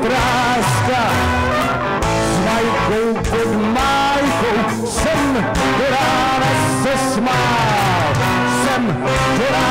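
Live band playing: trombone and trumpet over electric bass guitar and drums.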